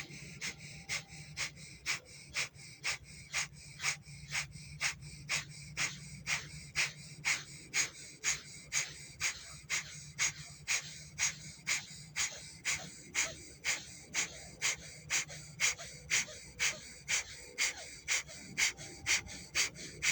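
Rapid, forceful breathing through the right nostril with the left one closed, a yoga pranayama pumping exercise. The sharp exhalations come in an even rhythm of about two and a half a second.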